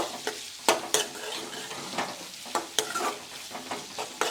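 Carrots, chillies and garlic frying in hot oil in a pan, sizzling steadily, while a spatula stirs them and knocks against the pan about ten times at an uneven pace.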